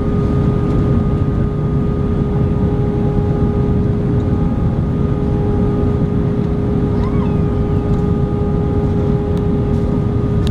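Steady cabin noise of an Airbus A320 on descent, heard from a window seat over the wing: a deep, even rush of engine and airflow noise with a constant droning hum.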